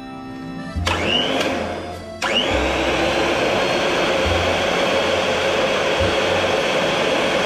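Electric blender run in a short burst, then switched on again about two seconds in and left running steadily, its motor whining up to speed each time it starts.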